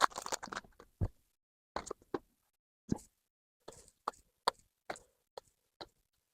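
Pokémon trading cards being flipped through one by one, with short soft clicks and taps about every half second to second as each card is slid off the stack. A brief rustle of the foil pack wrapper sounds in the first half second.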